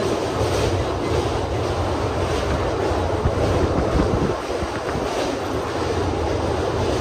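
Passenger train running over a steel girder bridge: a steady, loud rumble of wheels on rails and steelwork, heard from an open coach doorway with wind on the microphone.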